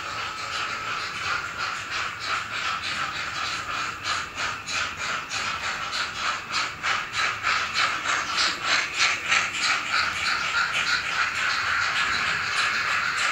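N-scale model train running on the layout: a steady high motor whine with rhythmic ticking at a few beats a second from the running train, growing louder toward the middle as it comes close.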